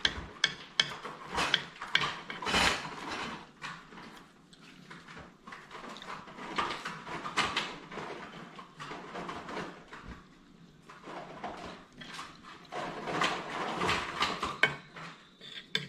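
A metal spoon and fork clinking and scraping on a ceramic plate while eggs and salmon patty are scooped up. There is a run of quick clinks in the first few seconds and longer stretches of scraping later on.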